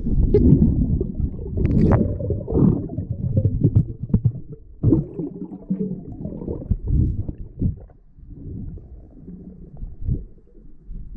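Muffled underwater sound of a freediver swimming over a lakebed: low, uneven rumbling and swishing of water moving past the submerged camera, with a few sharp clicks in the first couple of seconds.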